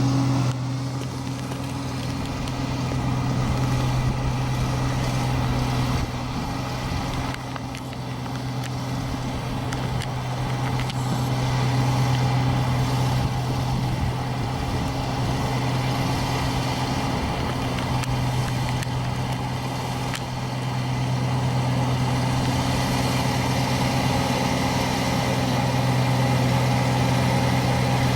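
Iseki rice-harvesting machine (ISEKI 325) running steadily while cutting rice, a constant engine hum with mechanical clatter over it, dipping slightly in level a few times.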